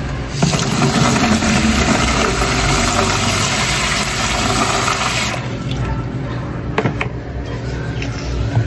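Water from a stainless outdoor tap pouring and splashing into a black plastic tub, running for about five seconds before the tap is shut and it stops suddenly.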